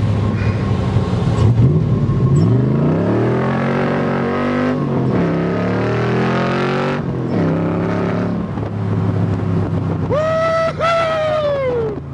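A Shelby Cobra roadster's 347 cubic-inch Ford stroker V8 accelerates hard in an open cockpit, its pitch climbing, dropping at a gear change, and climbing again before settling to a steady cruise. Near the end a loud high pitched sound rises and falls over about two seconds.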